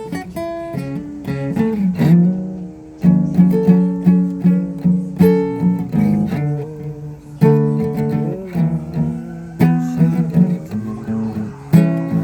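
Acoustic guitar being strummed and picked, chords struck every second or two with a few bent notes about two-thirds of the way through.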